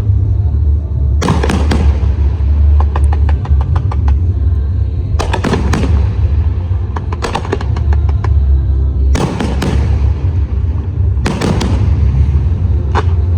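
Aerial firework shells bursting in loud clusters of bangs every two to four seconds, with runs of rapid crackling pops between them. A constant low rumble lies under it all.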